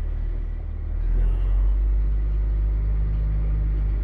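Engine running with a steady low rumble, growing louder about a second in.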